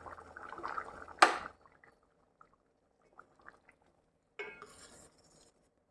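Cooking pot and metal utensils clinking and clattering. There is a sharp clank about a second in, then a few light ticks, and a second clatter with a short ring about two-thirds of the way through.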